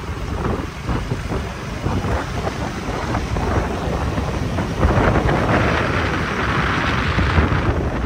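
Wind rumbling and buffeting the microphone of a moving motorcycle, mixed with engine and road noise. About five seconds in, a louder rushing hiss swells and eases off near the end.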